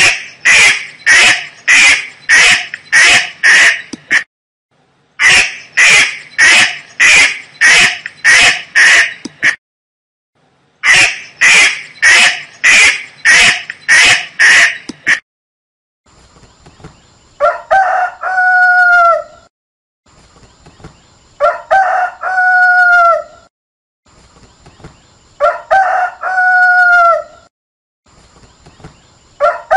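A duck quacking in three rapid bouts of about eight loud quacks each, followed by a rooster crowing four times, about every four seconds.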